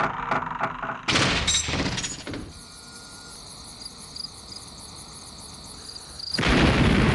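Edited sound effects: a fast crackle of clicks, a loud sudden burst about a second in, then quiet open-air ambience with a few faint high chirps, and a loud rumbling blast starting near the end.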